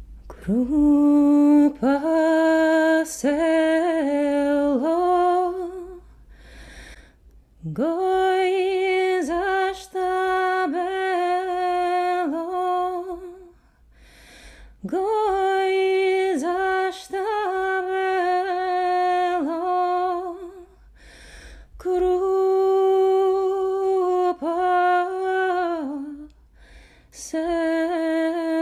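A woman singing a Georgian song alone and unaccompanied, in four long held phrases with short pauses for breath between them. Each phrase opens with an upward slide into a sustained note that is decorated with small turns.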